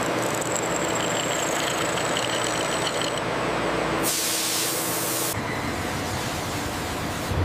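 Steady rumble of heavy machinery, with a thin high whine in the first three seconds. About four seconds in comes a loud hiss lasting over a second.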